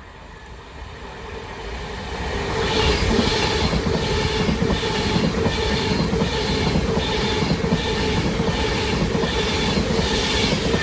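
Avanti West Coast Class 390 Pendolino electric train passing through at speed. It grows louder over the first two seconds, then holds as a loud steady rush with a regular clatter of wheels over the track and a steady hum.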